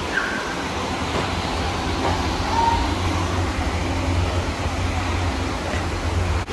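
Steady low rumble with an even hiss underneath, with faint voices of other people.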